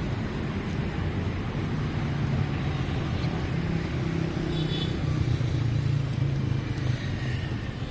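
City street traffic: motor vehicle engines running close by, a low engine hum that grows louder about halfway through.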